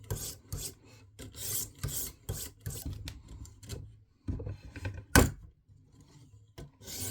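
Light, quick strokes of a 300-grit sharpening stone along a thin fillet-knife edge in a KME guided sharpener, a dry rasping hiss about two to three strokes a second, to knock off the burr. The strokes pause partway, and a single sharp knock comes about five seconds in.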